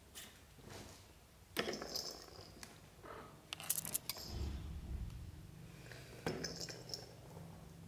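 Kittens' paws and claws scuffing and crinkling the fabric of a play tunnel, in a few short rustling bursts about one and a half, three and a half, and six seconds in, over a faint steady low hum.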